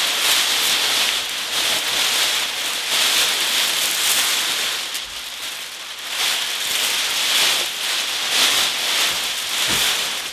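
Large clear plastic bag crinkling and rustling continuously as it is pulled up and off a chair, with a quieter lull about halfway through.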